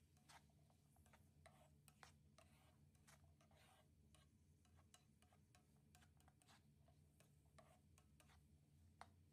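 Near silence: faint scattered clicks and taps, with a sharper click near the end.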